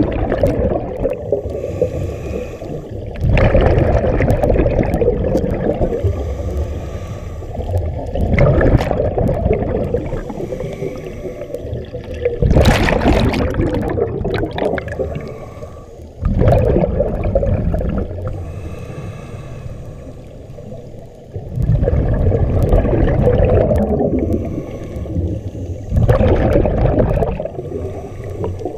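Scuba diver breathing through a regulator underwater: a slow, repeating cycle of hissing inhalations and gurgling bursts of exhaled bubbles, about one breath every four to five seconds.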